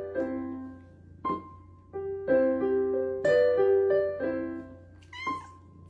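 Portable electronic keyboard played with a piano sound: short phrases of single notes and chords with pauses between them, each note fading away. A steady low hum runs underneath.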